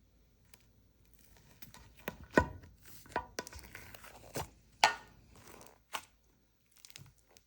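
Irregular sharp taps and knocks of small hard objects being handled and set down on a hard tabletop, with light rustling between them; the loudest knocks come about two and a half and five seconds in.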